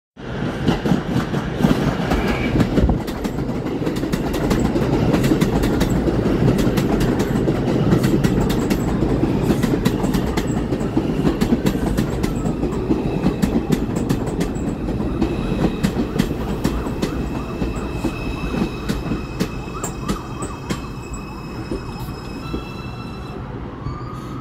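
R142 subway train pulling into the station and braking to a stop: a loud rumble of steel wheels on rail with rapid clicking over the rail joints, easing off as it slows. In the last several seconds, high steady whining tones sound as it brakes, dropping away one by one near the end.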